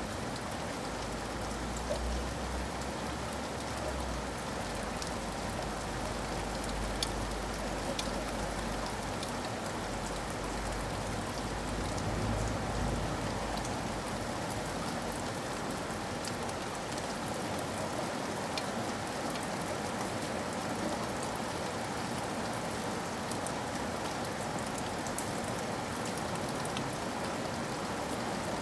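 Steady rain falling, with scattered single drops ticking through it. A low rumble underneath fades out about halfway through.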